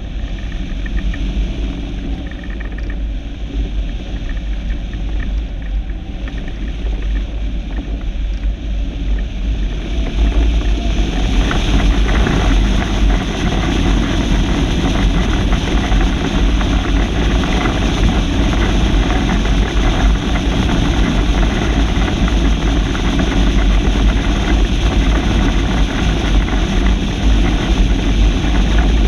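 Wind buffeting the microphone: a steady low rumble with a rushing hiss that grows louder about eleven seconds in.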